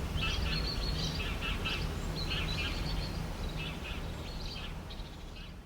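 Songbirds chirping and singing in a morning chorus, short repeated phrases over a steady low background rumble, fading out gradually toward the end.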